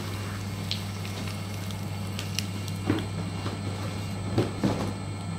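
Mini paper shredder's motor humming steadily while its cutter blades crunch up the last of a paper box, with a few sharp cracks, the loudest about three and four and a half seconds in. Near the end the shredder runs on empty.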